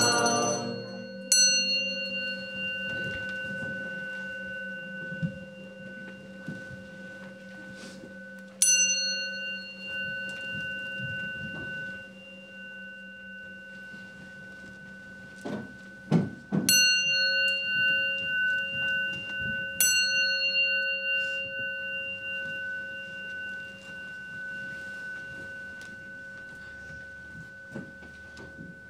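A Zen temple bowl bell struck four times, about 1 s, 9 s, 17 s and 20 s in. Each strike rings on long as several steady tones that slowly fade. The strikes mark the bows at the end of the service.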